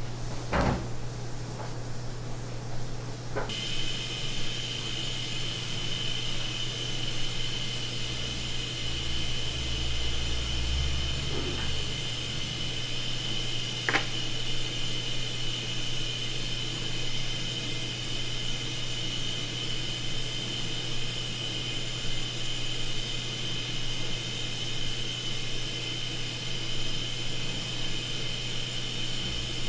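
Steady machine hum like a fan or motor running, joined a few seconds in by a steady high whine, with a few faint clicks.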